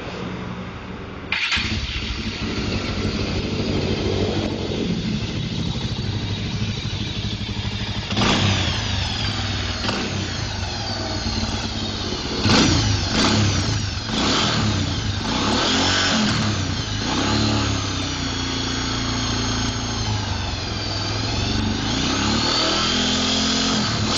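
Bajaj Pulsar 200's single-cylinder four-stroke engine, breathing through a Honda Tiger Revo muffler, starts on the electric starter about a second in and settles to an idle. From about eight seconds in the throttle is blipped repeatedly, the exhaust note rising and falling with each rev.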